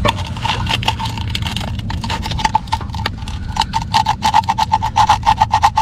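Sandpaper rubbed back and forth between a distributor's breaker points, rapid scraping strokes that quicken to several a second about three and a half seconds in: the corroded contacts are being sanded clean to restore spark.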